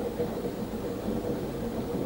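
Narrow-gauge steam train running, a steady low rumble.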